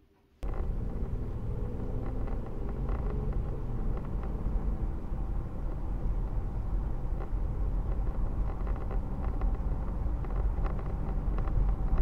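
Inside a moving car's cabin, a steady low rumble of engine and road noise that starts suddenly about half a second in, with a few faint light clicks.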